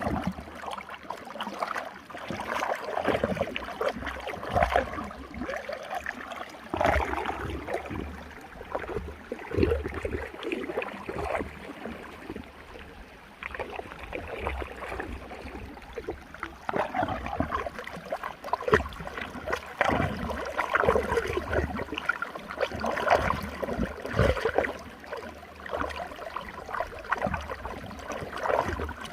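Running water swirling in a whirlpool, its loudness rising and falling unevenly.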